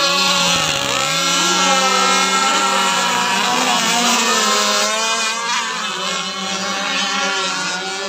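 Several radio-controlled racing powerboats running at full throttle, their small engines overlapping in a high, steady drone whose pitch rises and falls as the boats speed past and turn.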